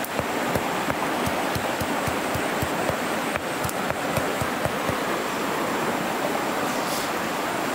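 Rushing stream water, with steady dull thuds, about three a second, of a hand-held stream stone pounding chili and garlic on a flat rock to make a dipping sauce.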